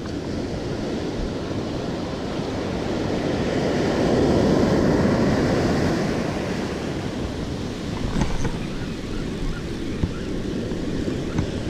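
Ocean surf breaking and washing up the beach around the listener, swelling to its loudest about four to six seconds in and then easing.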